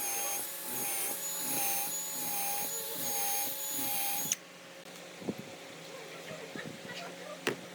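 A handheld electric power tool runs with a whine whose pitch wavers up and down as it meets the wood, then cuts off abruptly a little over four seconds in. After that come a few quieter sharp knocks, as of wood or tools being handled.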